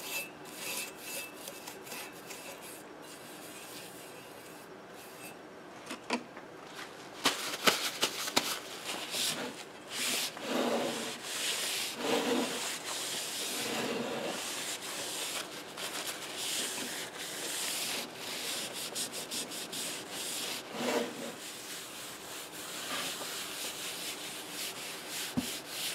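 Rubbing and scraping strokes at the rim of a loudspeaker basket as leftover glue from the old foam surround is cleaned off, in irregular passes with a few sharp clicks about six to seven seconds in.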